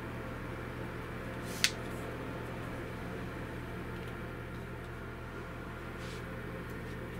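Steady low electrical hum of room tone, with one sharp click about a second and a half in and a fainter click near the end.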